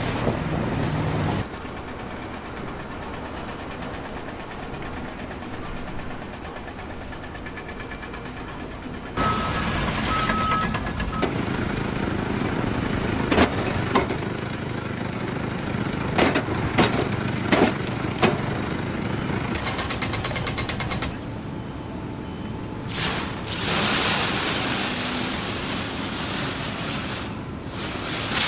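Construction machinery and work noise across several short clips that cut abruptly from one to the next, with a run of sharp knocks or strikes in the middle.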